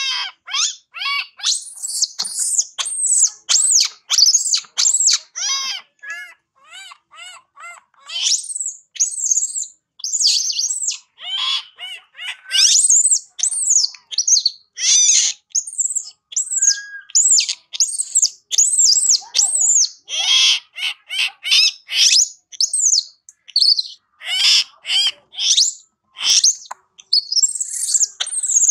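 Infant macaque screaming in distress: a long run of short, shrill, arching cries, about two a second, with a few brief breaks. It is an orphaned baby crying for its mother.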